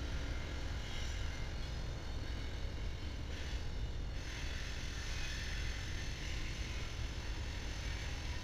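Several BNSF diesel-electric locomotives passing, a steady low engine rumble with a hiss above it that grows stronger about four seconds in.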